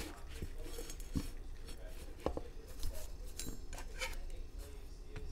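Scattered light clicks and taps of a fork and plate being handled at a table, over a low steady hum.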